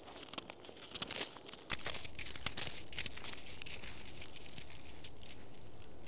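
A handful of snow squeezed and packed in bare hands close to clip-on lavalier microphones: a run of crisp crunching and crackling. A steady background hiss comes up under it about two seconds in.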